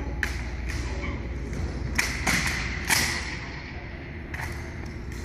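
Drill rifles being handled in a practice routine: a string of sharp slaps and knocks at irregular intervals, the loudest about three seconds in.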